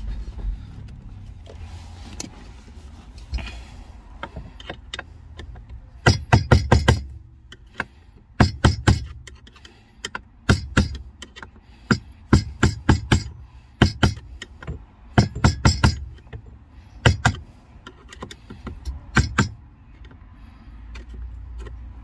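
Flat screwdriver worked against the lip of a heater core outlet on a heater pipe, making quick clusters of sharp metallic taps every second or two from about six seconds in. The lip is being pinched down to lock the pipe in place.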